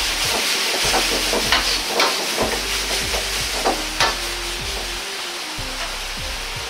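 A metal wok ladle scrapes and clinks against a Chinese wok, stirring vegetables in hot chicken stock over steady sizzling. The clinks come several times in the first four seconds and then stop, leaving the sizzle.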